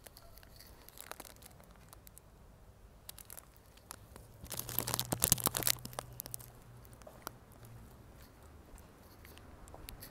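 Plastic wrapper of an ice cream monaka crinkling and tearing open with scattered crackles, then a loud crisp crunch about halfway through as the monaka wafer shell is bitten.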